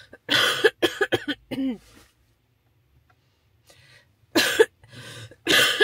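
A woman coughing in fits, which she puts down to acid reflux: a quick run of several coughs in the first two seconds, then two more harsh coughs near the end.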